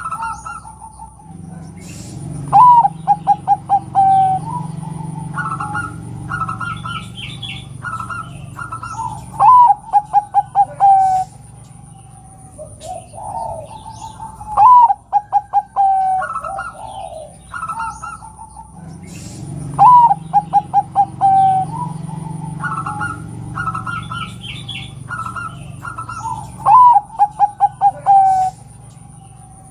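Zebra dove (perkutut) cooing: its song, a higher opening note followed by a quick run of about eight short staccato coos, repeats five times, with shorter coos in between.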